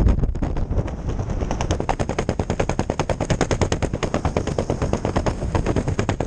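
Loose fabric flapping in the airflow under an open parachute canopy: a steady rapid flutter of about ten flaps a second, over wind noise on the microphone.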